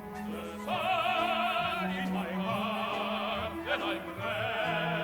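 Operatic tenor singing with strong vibrato over an orchestra, in phrases broken by short pauses.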